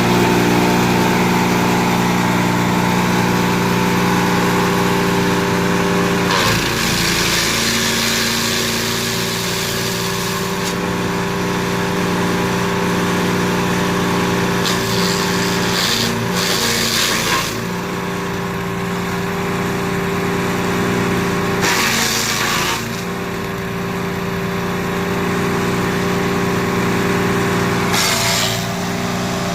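Wood chipper's 13HP 192F engine running steadily. Four times, for one to four seconds each, a coarse noisy stretch rises over it as material is fed through the chipper, and the engine pitch dips under the load.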